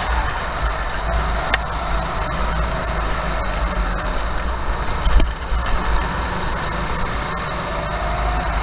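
Kart engine running on the track, heard from on board in a pack of other karts: its note falls away early as the kart eases off through a turn, then climbs again near the end as it accelerates out. A heavy low rumble runs underneath, with a sharp knock about five seconds in.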